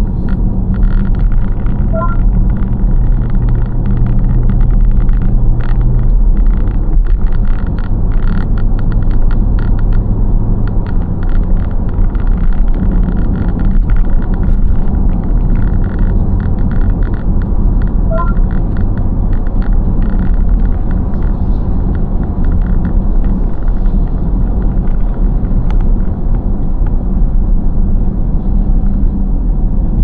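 Car driving at steady speed, heard from inside the cabin: engine and tyre noise as a continuous low rumble. A short electronic beep sounds twice, about two seconds in and again just past the middle.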